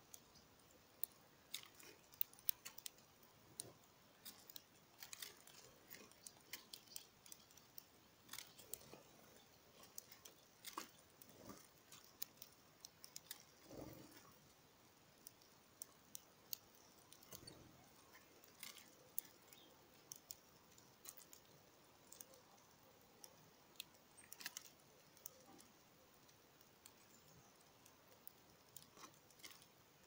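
House sparrows pecking and cracking seed in a wooden feeder tray: irregular sharp clicks and ticks, sometimes several in quick succession, with a couple of duller thumps about halfway through.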